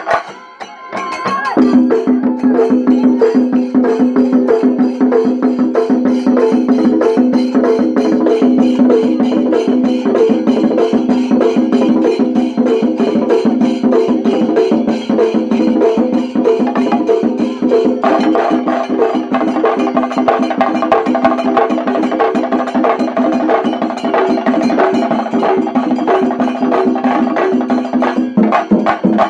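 Shinkari melam: a large ensemble of chenda drums beaten with curved sticks in a fast, dense rhythm, a steady drone running under the rapid strokes. The drumming drops away briefly at the start and comes back in full about a second and a half in.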